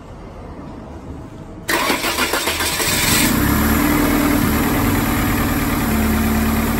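Peugeot 206 engine being started for the first time after a cylinder-head rebuild: the starter cranks briefly, the engine catches with a sudden jump in loudness under two seconds in, then settles into a steady idle. The exhaust is somewhat loud, which the mechanic puts down to a leak, likely at the middle silencer.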